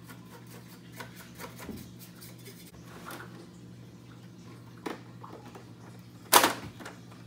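Small clicks and scrapes of a screwdriver turning a screw in an Xbox One's plastic casing and of the console being handled, over a steady low hum. A loud knock comes about six seconds in as the console is handled.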